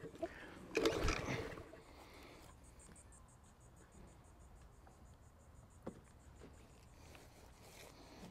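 A pull on the recoil starter of a Masport push mower's 6.75 engine: a burst of about a second as the engine turns over without starting. Afterwards a high, fast, evenly pulsing chirp goes on for several seconds, with a single sharp click near the six-second mark.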